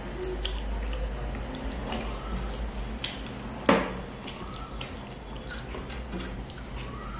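Fingers scraping and gathering rice on a stainless steel plate, with small wet eating clicks, and one sharp metallic clink against the plate a little under four seconds in.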